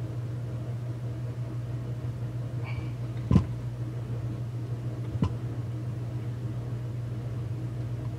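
Steady low hum in a small room, with two sharp clicks of pliers against the chainsaw's plastic housing, the louder about three seconds in and a lighter one about two seconds later.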